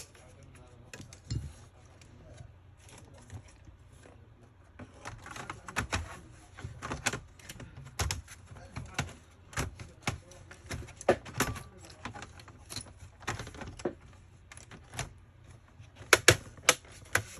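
Irregular sharp clicks and small knocks from a laptop being worked on by hand during repair, thickening about five seconds in and ending with a quick run of sharp clicks.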